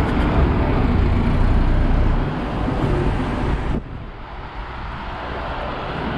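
City street traffic noise: a steady wash of passing vehicles with a heavy low rumble, which drops off suddenly about four seconds in and leaves a quieter, steady street hum.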